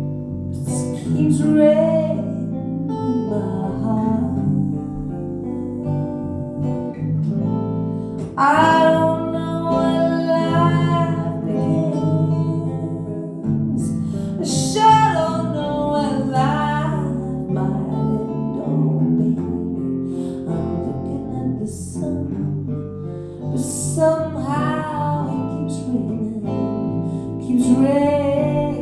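Music: a band plays a slow ballad on acoustic guitar, and a singer's voice comes in and out in phrases over it.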